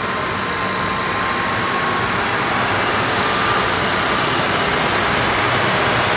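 Diesel engine of a New Holland T7.270 tractor running under heavy load as it drags a tractor-pull weight sled, a steady mechanical noise that grows gradually louder as the tractor comes closer.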